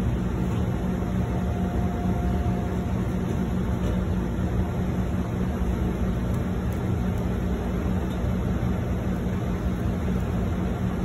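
Steady low hum and rush of commercial kitchen equipment running beside a hot flat-top griddle, with a faint high tone for the first few seconds.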